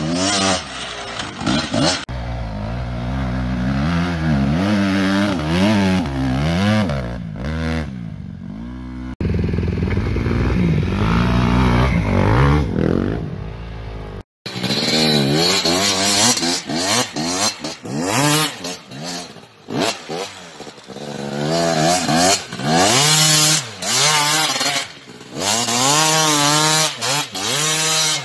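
Dirt bike engines revving up and down again and again under hard riding, across several separate clips that change abruptly at the cuts.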